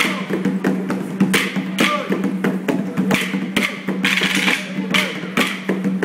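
Wooden maculelê sticks clacked together by a group of dancers in unison, sharp clacks at about two a second, over a steady hum and music.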